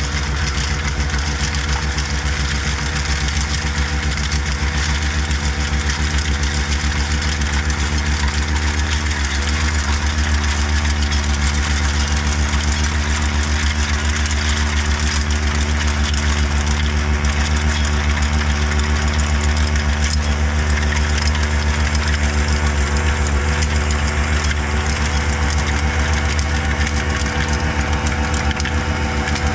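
CAT 262D skid steer's diesel engine running steadily at a constant speed, driving a Bobcat SB200 snow blower attachment.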